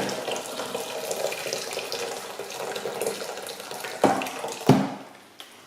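Boiling water running into a sink bowl, filling it. Two sharp knocks come near the end, and then the flow stops.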